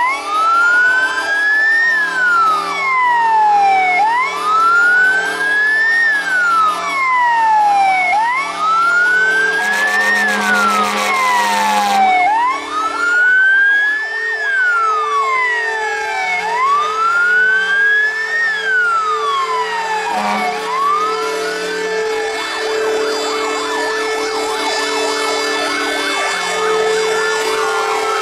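Several fire engine sirens wail together. The loudest rises and falls in a slow cycle about every four seconds, with steady lower tones coming and going underneath. About ten seconds in there is a two-second burst of rapid crackling.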